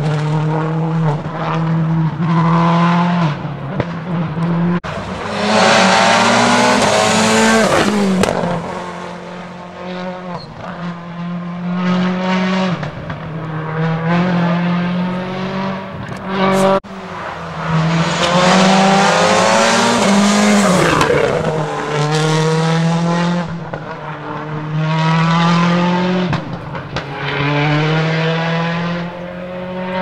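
A World Rally Car's turbocharged four-cylinder engine at full throttle, its revs climbing and dropping back over and over as it shifts through the gears and eases for corners, swelling louder and fading several times. There are two sharp cracks, about five seconds in and again near seventeen seconds.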